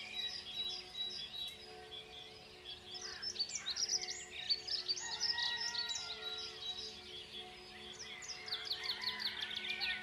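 Several songbirds singing together, with quick chirps and rapid falling trills. The birds are busiest in the middle and again near the end. Under them runs a soft, steady music drone.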